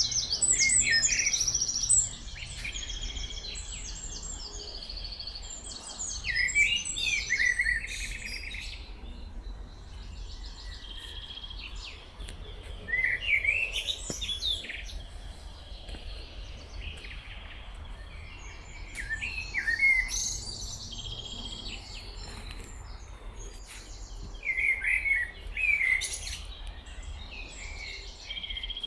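Songbirds singing in woodland: one loud bird repeats a short rapid song phrase about every five to six seconds, with other birds chirping more faintly between its phrases, over a low steady rumble.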